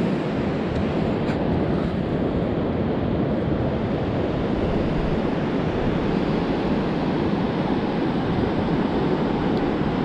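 Steady ocean surf and wind, with the wind rumbling on the microphone.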